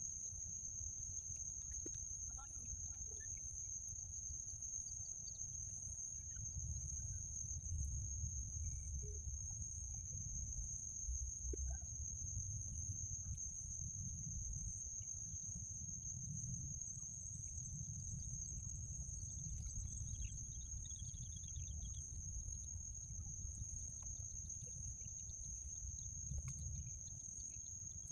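Open-air farm ambience: a steady low wind rumble on the microphone under a constant high-pitched whine, with scattered faint bird calls and a quick chattering run of calls about twenty seconds in.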